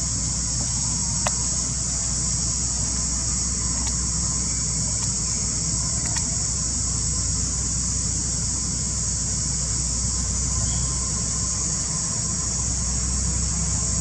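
Steady high-pitched buzz of an insect chorus, with a low steady rumble underneath and a few faint clicks.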